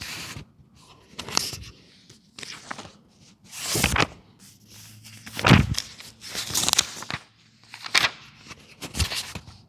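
A series of irregular scraping and rustling noises, about eight in nine seconds, each lasting under half a second.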